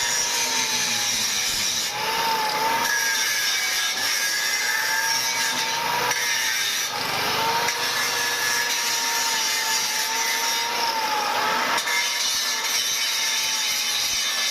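Electric power tool working metal: a steady hiss with a motor whine that sags and recovers in pitch several times as the tool is pressed into the work.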